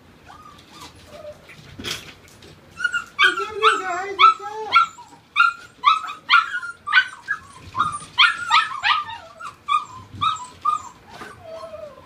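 Eight-week-old Siberian Husky puppies yipping and whining together in short, high calls, several a second, starting about three seconds in.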